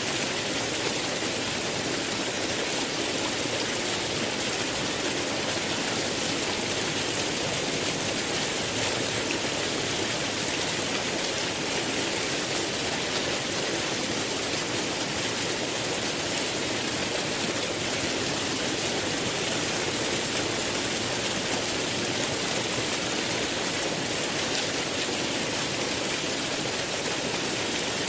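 Running water rushing steadily in an even, unbroken hiss.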